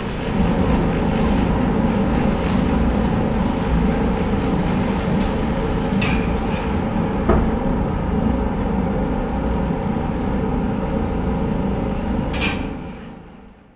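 A loud, steady rumbling noise with a thin high whine over it and a few sharp clicks, fading out over the last second and a half.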